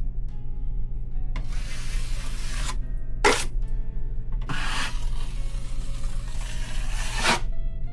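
Drywall knife scraping joint compound across a taped wall patch in several long swipes, each a dry rasping hiss, over a steady low hum.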